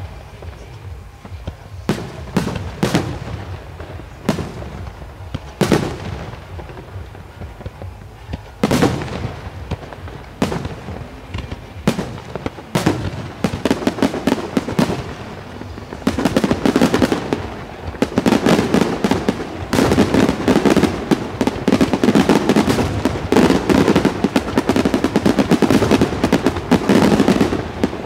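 Fireworks display: aerial shells bursting with sharp bangs, roughly one a second at first. From about halfway these become a dense, continuous barrage of rapid bangs that is louder.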